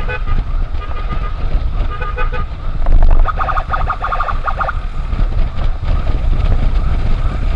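Rapid stuttering horn beeps, typical of an escort rider's strobe horn. A fainter burst comes about two seconds in, and a much louder, closer burst comes from about three seconds to nearly five. Underneath is steady wind rumble and engine noise from a moving motorcycle.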